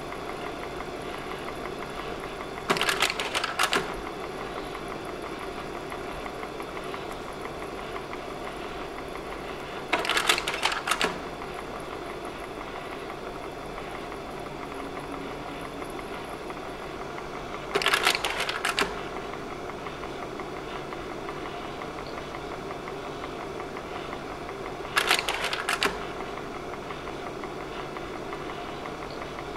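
Slide projector running with a steady fan hum, its slide-change mechanism clacking four times, about every seven seconds, each change a quick run of clacks lasting about a second.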